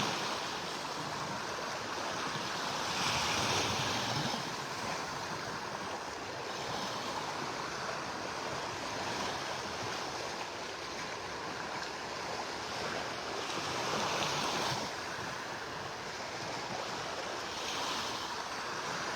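Gulf of Mexico surf washing onto the beach as the tide comes in: a steady hiss of small waves, swelling briefly three times as waves break.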